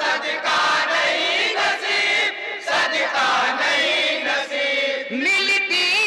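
A group of men chanting an Urdu naat together in chorus into microphones, the massed voices amplified over a PA. A new phrase rises in pitch about five seconds in.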